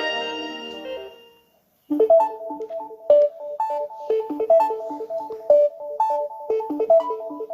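Samsung Galaxy phone ringtones: one tune fades out over the first second and a half, and after a short gap another ringtone begins about two seconds in. The new one is a quick keyboard-like melody of short notes that repeats its pattern.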